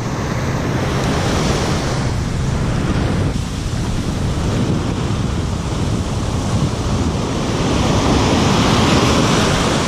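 Ocean surf breaking and washing up the beach: a steady rush that swells near the end as a wave breaks close in.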